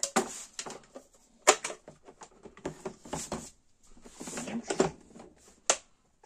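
Handling noise on a tabletop: plastic parts set down and a plastic toolbox opened and rummaged through, a run of clatters and clicks with two sharp clacks, about one and a half seconds in and near the end.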